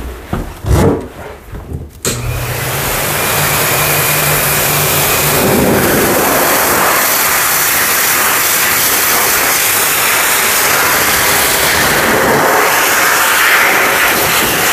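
A hose-type dog grooming blow dryer switches on about two seconds in, after a couple of knocks, and runs with a loud, steady rush of air blowing onto a wet dog's coat, a low motor hum under it for the first few seconds.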